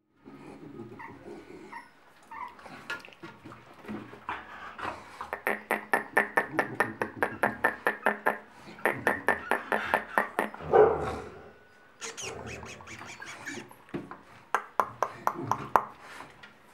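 Month-old Staffordshire bull terrier puppies yapping and whimpering, with a fast run of short yips through the middle and one louder bark a little after it.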